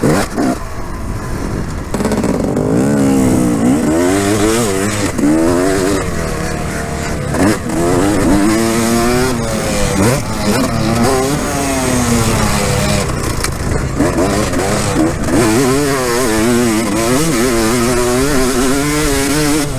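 Two-stroke Yamaha motocross bike engine revving up and down over and over as it is ridden over jumps, mostly held in second gear, with wind rushing over the helmet-mounted microphone.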